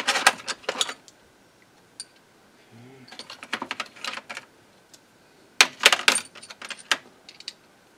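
Ratchet wrench clicking in three quick bursts of rapid clicks, loosening screws on a reel-to-reel recorder's chassis.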